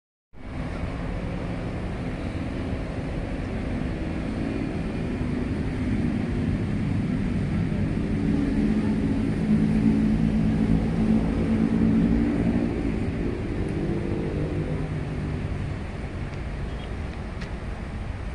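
Steady drone of a distant engine-driven vehicle, with a low hum that swells to a peak about ten seconds in and then slowly fades.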